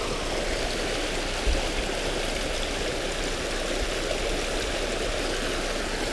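Creek water rushing and splashing over rocks, a steady even rush, with one brief low thump about a second and a half in.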